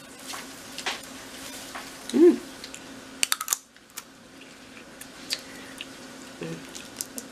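Snow crab leg shells cracking and snapping as they are broken open by hand and with the teeth: a run of sharp clicks and crackles, thickest a little past three seconds. A brief hum of a voice comes about two seconds in.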